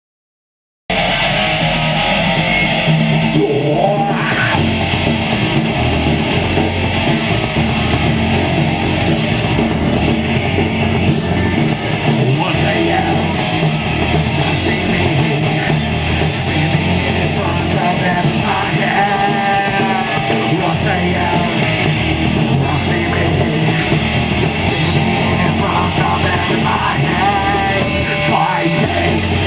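Live rock band playing loud, with electric guitar, drums and a singer's voice over the band. The music cuts in abruptly from silence about a second in.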